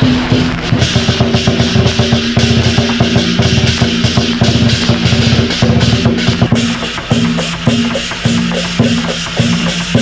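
Lion dance troupe playing large barrel drums and cymbals in a fast, dense beat, with a steady held tone underneath.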